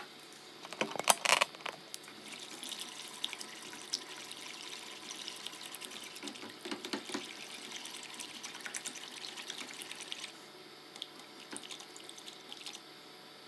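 Silicone whisk beating a thick chocolate pudding mixture in a pot, a steady wet swishing and slapping with a few sharp knocks about a second in. The whisking grows quieter about ten seconds in.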